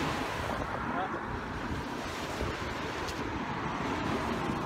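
Small bay waves washing against the shore, with wind buffeting the microphone in gusts.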